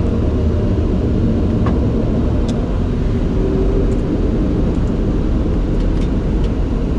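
Steady low rumble of airflow in the cockpit of a Bombardier Challenger 604 on final approach as the landing gear extends. A few faint clicks come through.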